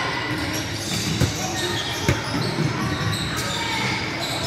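A basketball bouncing on a gym court during a game, with two sharp thumps about a second apart, over background voices.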